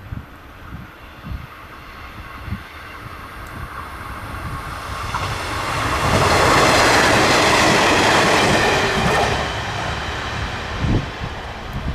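A train passing close by: its running noise and wheel clatter build over several seconds, are loudest in the middle, then fade away, with a few low thumps near the end.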